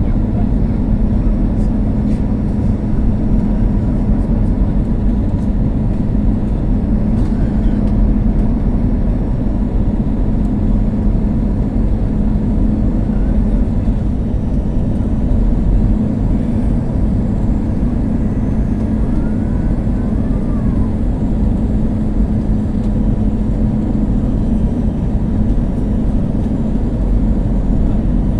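Steady drone of an Airbus A321's CFM56 turbofan engines and airflow, heard inside the cabin, with a constant low hum.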